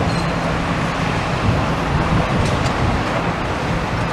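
Diesel engine of a demolition excavator running steadily, with a constant low hum over a broad rumble as it digs over and tamps down rubble.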